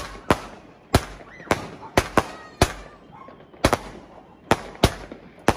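A multi-shot firework firing shot after shot into the air: a run of about a dozen sharp bangs, irregularly spaced, roughly two a second.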